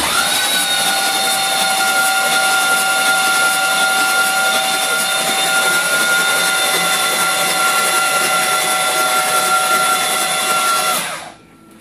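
Ford 6.0L Powerstroke V8 diesel being cranked over by its starter with no glow plugs, so it does not fire. The starter gives a steady whine over a hiss and cuts off near the end. The cranking spins the high-pressure oil pump to prime the oil system of the freshly rebuilt, never-fired engine.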